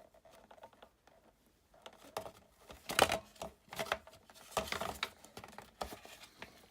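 Scattered clicks and taps of a motorcycle headlight unit being handled and fitted back into its housing, the loudest about three seconds in.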